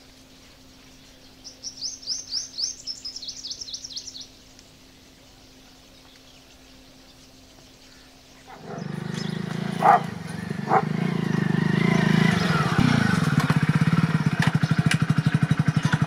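A bird gives a quick run of high chirps. About eight seconds in, a motorcycle engine comes in and runs with a rapid, even beat, getting louder toward the end.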